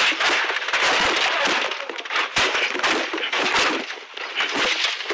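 Rally car crashing off the track into trees and undergrowth, heard from inside the cabin: a dense, rapid run of bangs, cracks and scraping as the body is struck over and over, dying down near the end.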